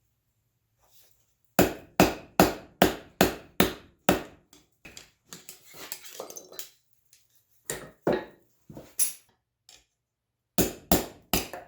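Blacksmith's hammer striking 1/4-inch round steel stock on an anvil, each blow ringing briefly. A quick run of about eight blows, lighter knocks, then two shorter runs of four blows.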